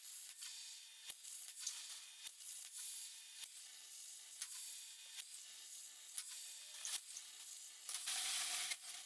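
Plasma cutter cutting steel plate: a faint, steady hiss with irregular small crackles and clicks, louder for about a second near the end.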